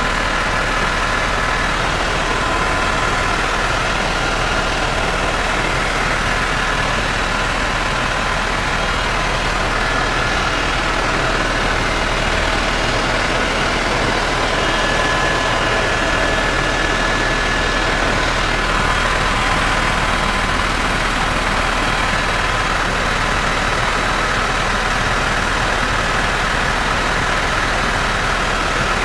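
A steady mechanical drone: a broad rush with several steady high tones above it.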